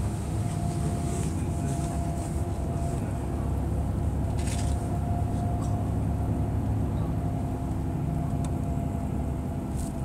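Inside a moving tour bus: the engine's steady low rumble with a faint steady whine above it, and a brief hiss about halfway through.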